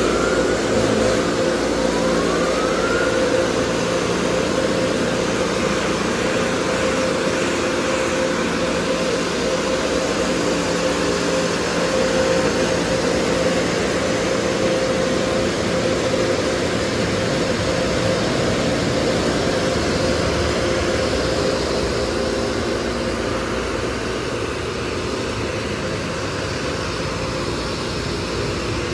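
Air dryers of a Mark VII touch-free car wash blowing, a loud steady rush of air with a steady motor whine, drying the car at the end of the wash cycle; the noise eases a little near the end.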